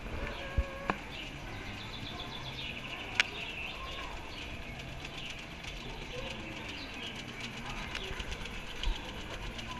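Ride vehicle of an indoor dark ride running along its track, with faint chirping sound effects and a few sharp clicks, the loudest about three seconds in.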